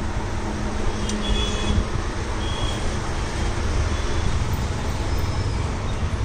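Steady background rumble and hiss with no speech, with two faint short high beeps about a second and two and a half seconds in.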